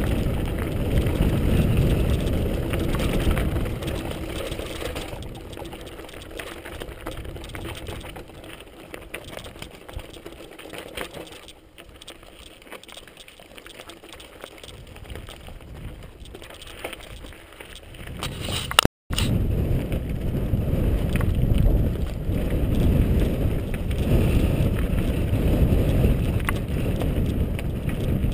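Mountain bike descending a loose gravel track, heard from a GoPro on the bike: wind on the microphone and tyres rolling over loose stones. It grows quieter through the middle, drops out for a moment about two-thirds of the way in, then comes back loud.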